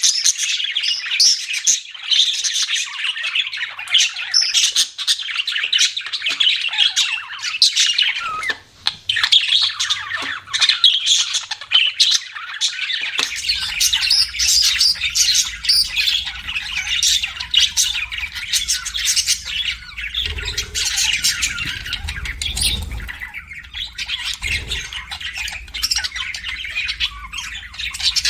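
A group of budgerigars chirping constantly, many quick overlapping calls. A low rumble joins about halfway through and swells a little later.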